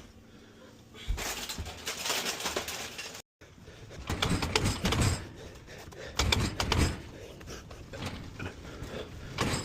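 Irregular knocks, clatter and rustling of things being handled, with a brief gap in the sound about three seconds in.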